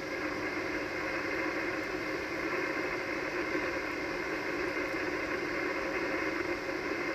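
Icom HF transceiver's receiver hiss: steady 80-metre band static on single sideband, held within the narrow voice passband with a few faint steady tones in it. It is the sound of an open frequency between the operators' transmissions.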